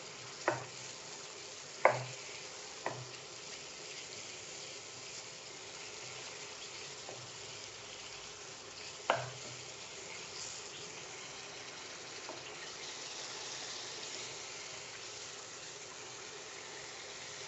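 Onion and ginger-garlic paste sizzling in hot oil and butter in a kadhai, a steady low hiss, with four sharp knocks of a stirring utensil against the pan in the first ten seconds.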